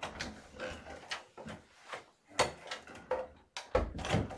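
A string of irregular clicks and knocks, the sharpest about two and a half seconds in, followed near the end by a heavier, low thump.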